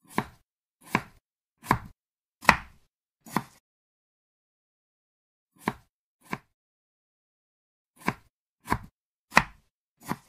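Kitchen knife cutting through a tomato and striking the cutting board beneath it, one knock per cut: five cuts about one a second, a pause of two seconds, two more, then four more, with dead quiet between them.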